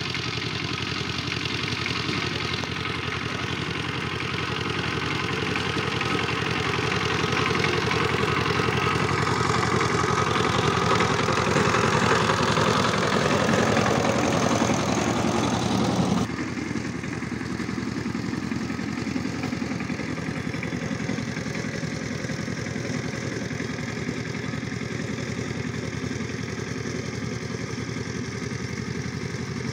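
Single-cylinder diesel engine of a two-wheel power tiller running steadily under load while its rotary tiller works the soil. It grows louder toward the middle, then drops abruptly about halfway through and runs on steadily, quieter.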